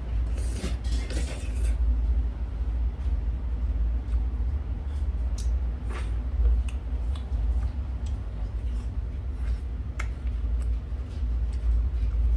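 Eating jajangmyeon: a slurp of noodles about half a second in, lasting over a second, then scattered light clicks of utensils on the bowl, over a steady low rumble.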